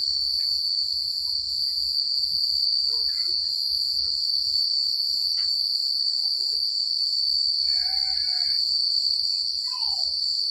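Crickets chirping at night in a dense, unbroken high trill. A short, fainter call from another animal comes through about eight seconds in.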